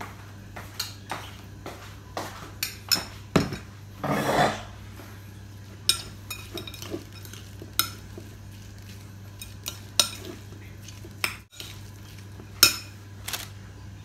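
Spoon clinking and scraping against a bowl as salted egg is stirred and mixed, in irregular taps with a longer scrape about four seconds in.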